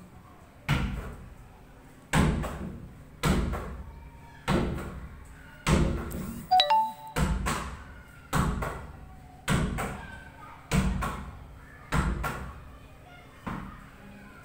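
A netball thrown against a wall and caught, over and over: about a dozen thuds, a little more than one a second, each ringing briefly in a bare, echoing room.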